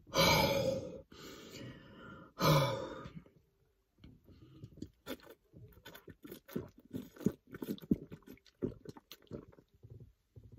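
A person chugging soda from a plastic bottle: repeated gulps and swallows, irregular, a couple a second, from about four seconds in. Before that, two loud rushing bursts in the first three seconds.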